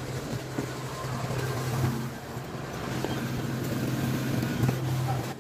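Soda fountain dispensing a foaming brown soft drink into a plastic cup: the rush and fizz of the pour over a steady low hum, cutting off sharply near the end.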